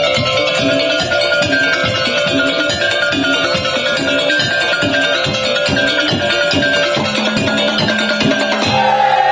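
Madurese tong-tong ensemble music: drums beating steadily at about four strokes a second under repeating melodic notes. Near the end a higher, sliding melodic line comes in.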